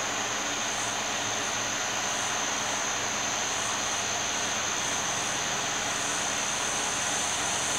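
Steady background noise: an even hiss with a constant high-pitched whine running through it, and no distinct events.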